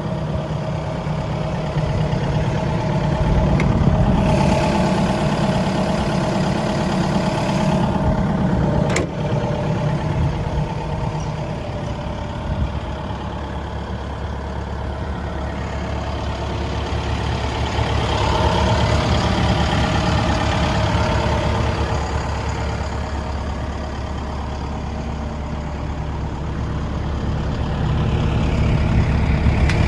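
Hitachi ZX135US-3 hydraulic excavator's diesel engine running continuously, rising and falling in level several times as the machine is worked. A single sharp click comes about nine seconds in.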